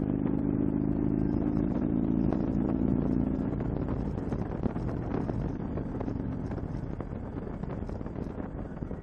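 Touring motorcycle's engine running at a steady cruise, heard from the rider's seat with wind rush on the microphone. About four seconds in the engine note drops back and the wind noise takes over.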